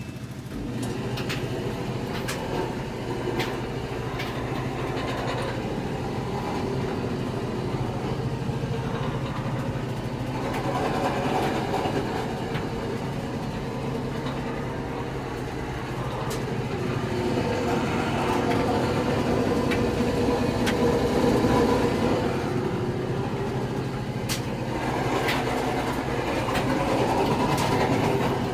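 Samsung clothes dryer running, its drum turning with a steady mechanical rumble and hum, broken by a few sharp clicks. The owner puts the noise down to the belt and pulley and suspects a bad pulley bearing.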